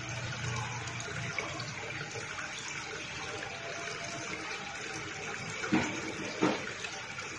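Pond water running and splashing steadily, with two sharper splashes close together near the end.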